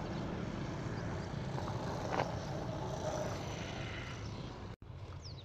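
Steady background noise with a low hum, no speech, and the sound cutting out for an instant near the end.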